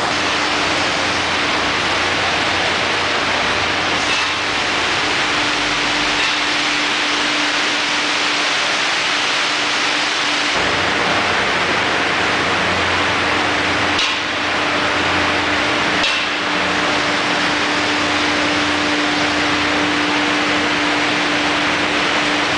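Steady factory-floor machinery noise: a loud, even rushing hiss with a low steady hum, with a few faint clicks.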